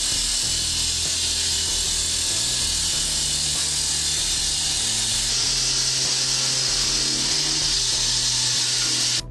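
Walk-behind diamond-blade concrete saw cutting through a wet concrete slab: a loud, steady high hiss that cuts off suddenly near the end. Background music plays underneath.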